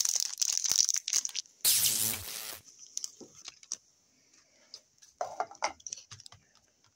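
Hockey card pack wrapper crinkling and being torn open, with one loud tear about two seconds in, followed by faint ticks and rustles as the cards are handled.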